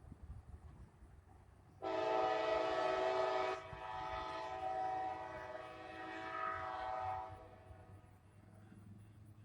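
Norfolk Southern freight locomotive's horn sounding a chord. The blast starts about two seconds in and is loud for a couple of seconds, then is held more softly and dies away about seven seconds in, over the low rumble of the passing train.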